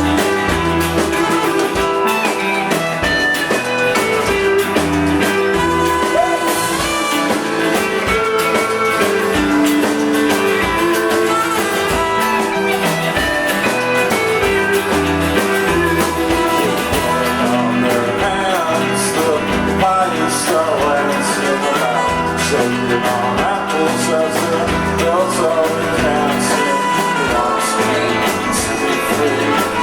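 Live rock band playing a song, with electric guitar, drums and sung vocals.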